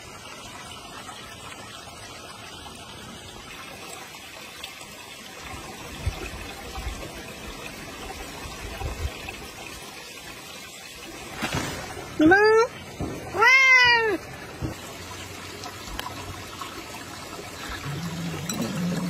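A domestic cat meows twice, about a second apart, the second call longer; each meow rises and then falls in pitch.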